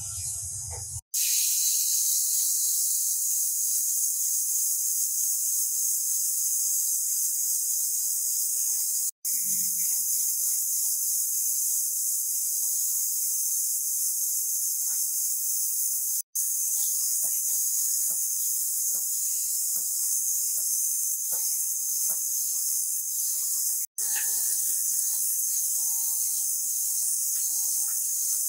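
Angle grinder with a sanding disc polishing a steel blade, heard as a steady high-pitched hiss that starts about a second in. It breaks off for an instant three times.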